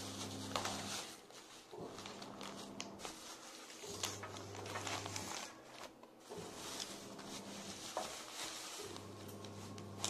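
Handling of an aluminium foil takeaway tray and a plastic carrier bag: crinkling foil, rustling plastic and scattered small clicks and taps.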